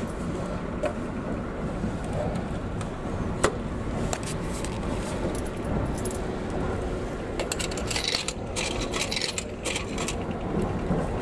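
Coins clinking and dropping as they are fed into a coffee vending machine, with a burst of metallic clinks from about halfway to near the end, over the steady running rumble of the train.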